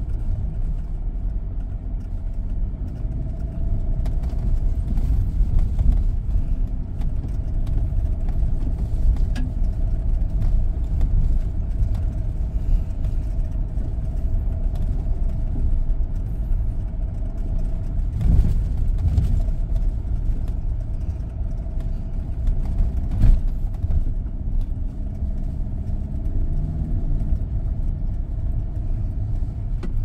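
SsangYong Rexton Sports pickup driving off-road: its diesel engine runs steadily under load with a heavy low rumble. Two short knocks come through, one a little past halfway and one about three-quarters of the way in.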